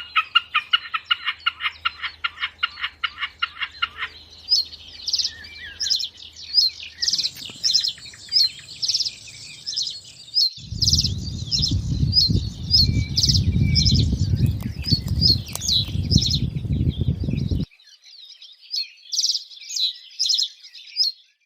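Birds calling: a rapid train of call notes, about five a second, for the first four seconds, then many short high chirps and song phrases. A low rushing noise runs under the chirps from about ten seconds in to about seventeen seconds in.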